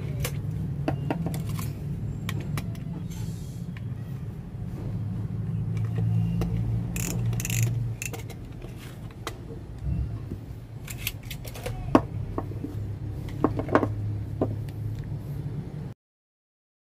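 Light clicks and knocks of metal tools and steering parts being handled on a workbench, over a steady low hum, with a short rasp about halfway through. The sound cuts out completely near the end.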